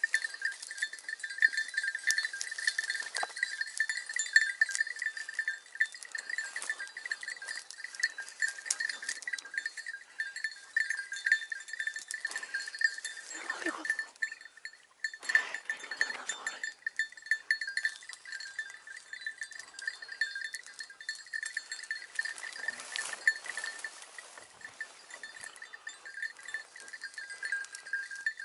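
Small bell on a hunting hound jingling steadily as the dog works through the brush, with two short lower sounds about halfway through.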